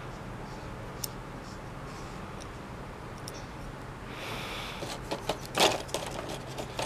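Small metal tools and parts clicking and clattering as a hand picks through a plastic tool tray, with a single click about a second in and a run of clicks in the last two seconds, the loudest near the end.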